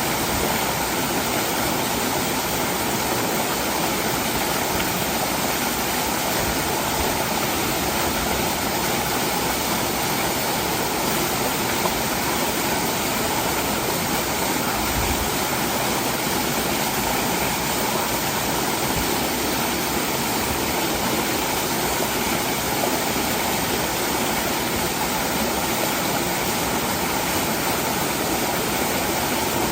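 Waterfall rushing steadily: a dense, unbroken noise of falling water.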